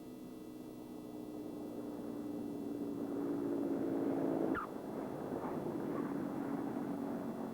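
Light aircraft's propeller engine running with a steady drone that grows louder for about four seconds, then drops suddenly in loudness and pitch, as it passes by.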